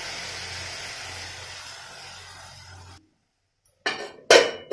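Spinach and vegetables sizzling in an aluminium kadai, fading slowly and then cutting off; a second later a metal plate lid clanks twice onto the pan, the second clank louder and briefly ringing.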